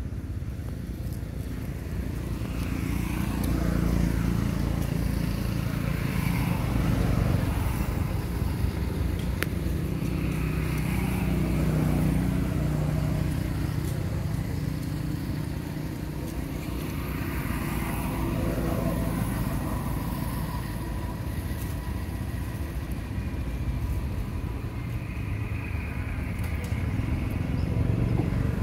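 Road traffic going by: a steady low engine rumble that swells and fades several times as vehicles pass, with engine notes sliding up and then down as each one approaches and goes away.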